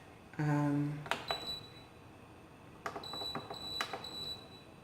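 Induction cooktop giving off a thin, high-pitched whine that comes and goes, with a few sharp clicks; the cooker is loud. A short hummed voice sound comes just before the whine starts.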